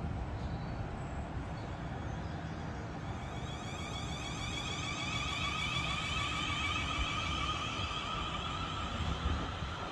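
Class 450 Desiro electric multiple unit pulling away from a station over a low rumble. About three seconds in, an electric whine of several pitches starts up from its traction equipment as it gathers speed.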